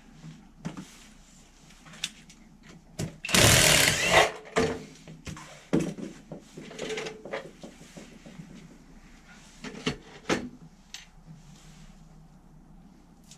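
Workshop handling noises: scattered knocks and clicks of tools and metal parts being handled, with one loud rattling burst lasting about a second a little over three seconds in.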